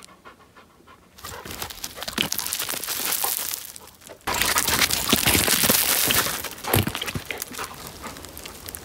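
Irregular crunching and crackling, quiet at first, jumping suddenly louder about four seconds in, then easing off.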